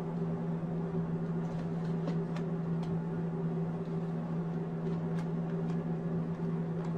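A steady low hum, with a few faint ticks scattered through it.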